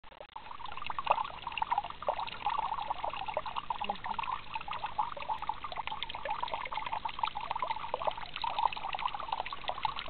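Small spring water trickling over rock into a shallow pool: a steady, busy run of quick plinks and gurgles.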